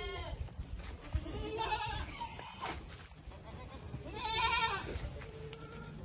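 Goats bleating: two quavering bleats, one about one and a half seconds in and a louder one about four seconds in.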